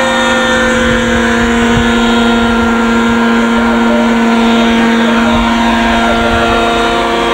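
Radio-controlled scale model helicopter's engine and rotors running steadily in flight, holding an even pitch.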